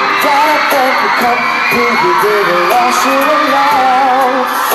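Male pop singer singing live into a handheld microphone over a pop backing track, the melody wavering with vibrato on held notes.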